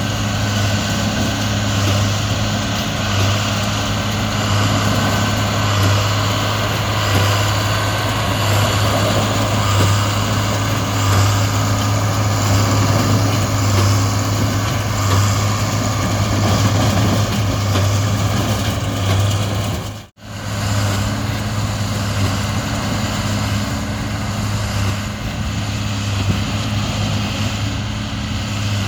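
Large diesel harvest machinery running steadily under load, a deep even engine drone with machine noise over it; the sound drops out for an instant about twenty seconds in and then carries on the same.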